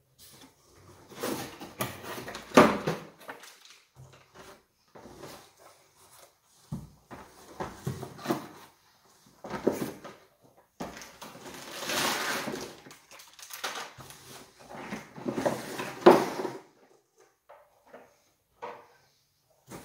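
Cardboard boxes and packaging being handled by hand: flaps rustling and scraping as parts are lifted out and set down, in irregular bursts with a few sharp knocks.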